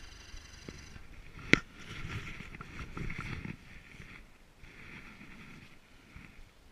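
Snowmobile running as it ploughs through deep powder snow, with one sharp knock about a second and a half in and rough rushing noise for the next two seconds, then fading away.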